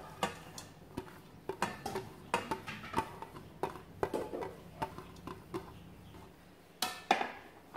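Fingers scraping shredded carrot, onion and scallion off a plate into a stainless-steel bowl, with light, uneven clicks and taps of the plate against the bowl, about two a second.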